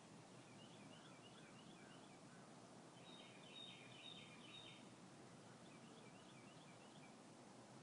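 Faint songbird singing: three bouts of quick, high chirping notes over a steady outdoor hiss.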